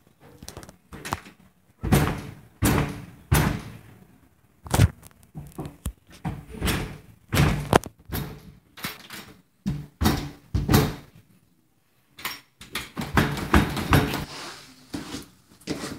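Repeated loud banging on a front door: irregular heavy thuds, about one or two a second, each ringing briefly through the door. The hits stop briefly just before twelve seconds in, then come back faster and closer together.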